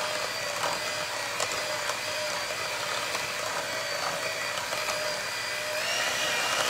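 Electric hand mixer running with a steady whine, its beaters working a thick cream cheese and shredded-cheese mixture in a stainless steel bowl. The whine steps up in pitch near the end.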